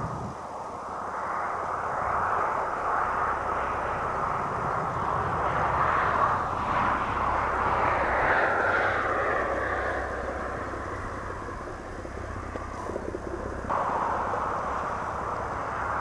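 A steady engine drone, swelling toward the middle and easing off, with its pitch sliding slowly down around halfway.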